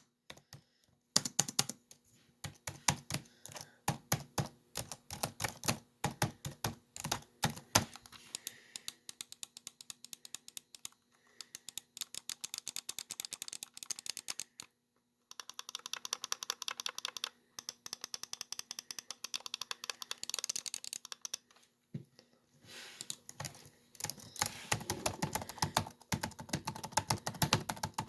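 Typing on a laptop keyboard: fast runs of key clicks broken by a few short pauses, one about a second in, one near the middle and one a little before the end.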